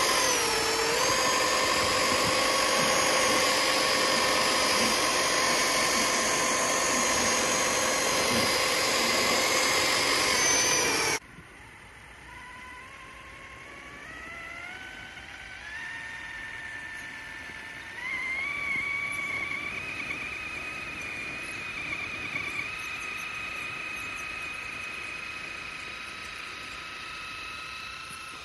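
Electric motors and geared drivetrains of RC crawlers whining as they push through deep snow. A loud, steady whine stops suddenly about eleven seconds in; after it a quieter whine rises in pitch in steps as the trucks speed up.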